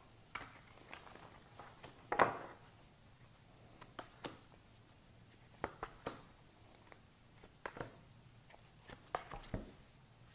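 Tarot cards shuffled by hand, then dealt face down onto a wooden table: soft rustling and scattered light taps and slaps of the cards, with one louder rustle about two seconds in.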